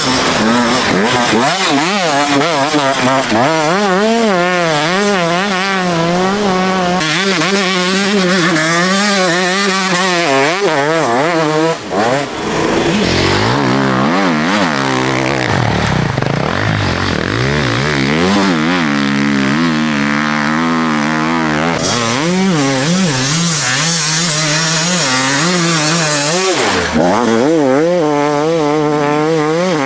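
Enduro dirt bike engines racing through deep beach sand, revving hard with the pitch wavering rapidly up and down as the riders work the throttle. There is a brief drop in level about twelve seconds in before another bike comes through.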